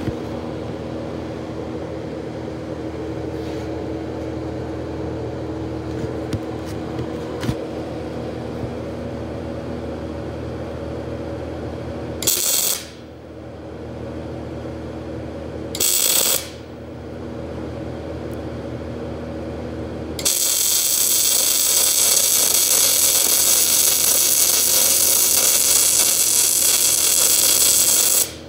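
MIG welding arc: two short half-second bursts of arc noise a few seconds apart, then about eight seconds of continuous welding hiss ending just before the close, with the power set a little hot. A steady hum from the machine sits underneath throughout.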